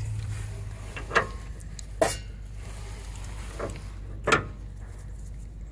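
Pitman arm puller's forcing screw being turned with a breaker bar, giving four sharp metal clicks and knocks spread through a few seconds as the puller takes up load against the Pitman arm, which has not yet broken free.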